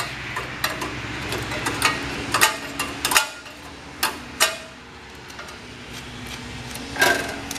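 Irregular metal clicks and knocks, about ten, from a hand tool against the metal parts and governor linkage of a John Deere 212's engine. Most come in the first four seconds and one more near the end.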